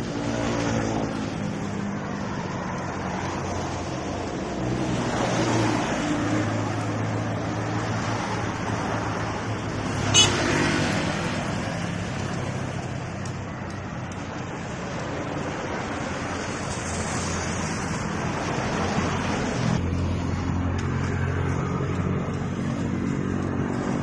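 Road traffic: motor vehicle engines running and passing close by, heard from a moving bicycle. A single sharp click or ding stands out about ten seconds in.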